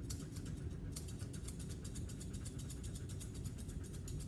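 Grooming scissors snipping dog hair in quick succession, about seven snips a second, over a low steady rumble.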